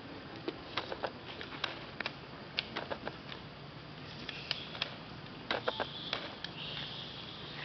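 Outdoor forest-floor ambience: a steady hiss with many scattered sharp clicks and crackles. A thin high-pitched whine sounds from a little before six seconds in until about seven seconds in.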